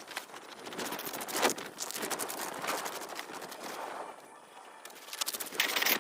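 Irregular crunching, rustling and clicking of gear being handled on snow and ice, with a sharper knock about a second and a half in and a louder burst of rustling near the end.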